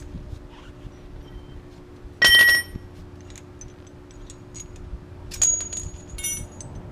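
Steel parts clanking: one loud, ringing metallic clank a little over two seconds in, a sharper clink about five and a half seconds in, then a few light clinks, over a steady hum.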